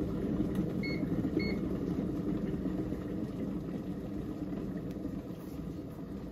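Two short electronic beeps about half a second apart, over the steady low hum of a kitchen appliance running.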